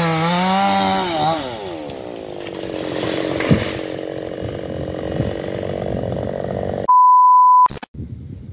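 Two-stroke chainsaw running at full throttle, its pitch falling after about a second, then running at lower revs for several seconds. Near the end a loud, steady electronic beep lasts under a second and cuts off abruptly.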